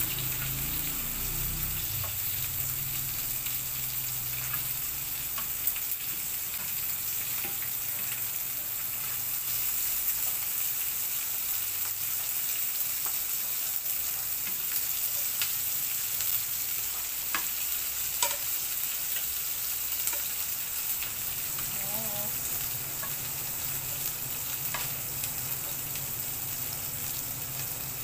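Dried danggit (rabbitfish) frying in hot oil in a pan with a steady sizzle. Metal tongs click against the pan now and then as the pieces are turned and lifted out.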